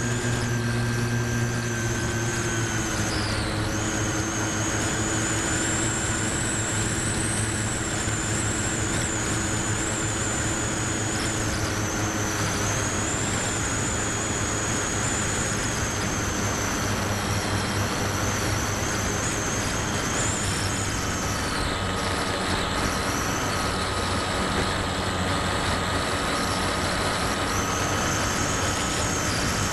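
Onboard sound of a Multiplex Moviestar RC plane in flight: its electric motor and propeller whine steadily under a constant rush of wind over the airframe. The whine dips slightly in pitch twice.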